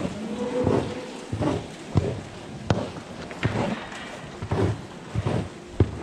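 A long-handled stall scraper pushed in quick repeated strokes across a cow cubicle bed. Each stroke scrapes and knocks on the concrete and flicks bedding onto the slatted floor, roughly one stroke a second or a little faster.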